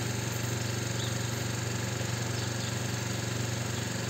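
A motor runs steadily with a low, even hum, under the hiss of a water spray being played over garden plants and lawn.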